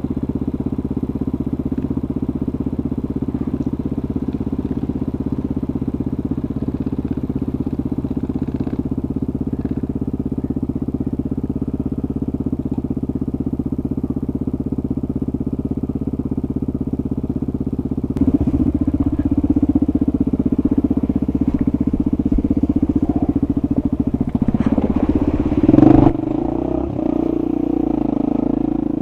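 Single-cylinder dirt bike engine running steadily at low speed on a rough trail. The engine gets louder about two-thirds of the way through, and there is a short loud burst near the end.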